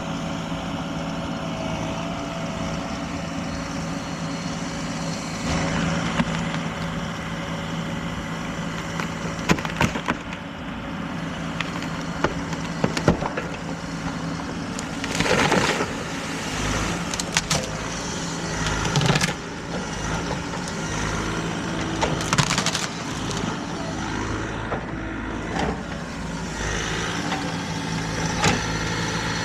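Excavator's diesel engine running steadily while a dead tree cracks and splinters as the machine pushes it down. Sharp cracks come around ten and thirteen seconds in, and longer crashing bursts around fifteen and twenty-two seconds in.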